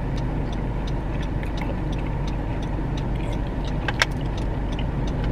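Steady low rumble of a car idling, heard from inside the cabin, with faint scattered ticks and one sharp click about four seconds in.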